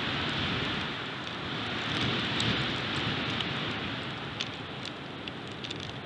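Strong wind rushing through pine trees, swelling about two seconds in and then easing off, with a few faint ticks near the end.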